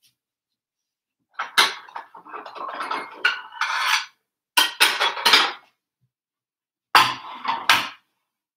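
Plates clattering and clinking as they are taken out and handled, in three bursts of knocks with short silences between them, starting about a second and a half in.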